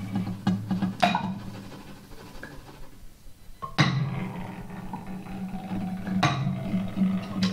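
Sparse improvised live music: three struck, ringing notes about two and a half seconds apart over a steady low hum, with a quiet stretch before the second note.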